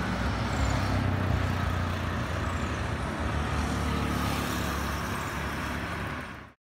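Road traffic: cars and vans driving past on a two-lane road, a steady rumble of engines and tyres. It cuts off suddenly near the end.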